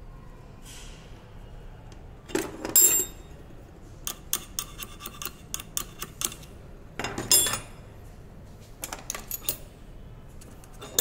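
Steel parts of a circuit breaker's chain mechanism clinking and rattling as a roller chain and a metal rod are handled: sharp clinks about two and a half seconds in and again around seven seconds, with a run of light clicks between them.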